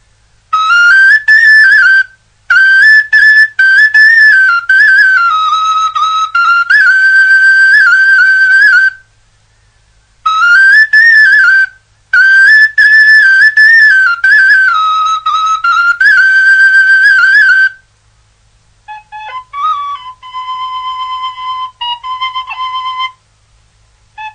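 Background music: a solo flute playing a melody in two long phrases, each ending in a short pause, then a softer, lower phrase near the end.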